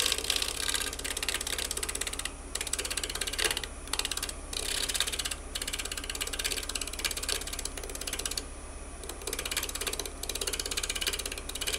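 Negative rake scraper cutting the outside of a natural-edge wooden bowl spinning on a woodturning lathe: a rapid, even clatter with the lathe's steady hum beneath. The cut breaks off briefly a few times.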